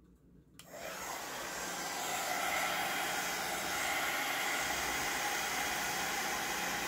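Embossing heat gun switched on about half a second in, its fan spinning up within a second into a steady hiss of blowing hot air as it melts clear embossing powder.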